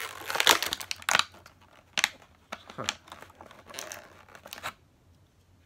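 Plastic packaging crinkling and tearing in quick crackles and clicks as a toy part is unwrapped, stopping a little before the end.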